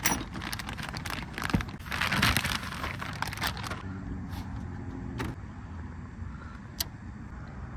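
Plastic wrapping rustling and crinkling for about the first three and a half seconds as it is pulled off a Honda Motocompacto folding scooter, then a couple of sharp clicks and light rattles as the scooter's handlebar stem is raised out of its case.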